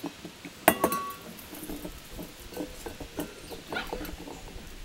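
A stainless steel dog bowl clanks sharply about a second in and rings briefly, then puppies' paws patter and their claws tick on the deck boards and paving stones.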